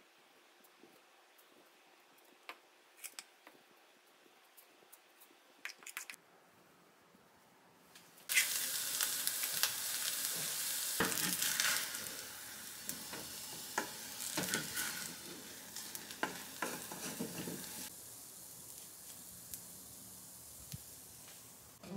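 A few light clicks of kitchen handling, then about eight seconds in food goes into hot oil in a frying pan and sizzles loudly, with taps and scrapes of a utensil in the pan; the sizzle eases a little near the end.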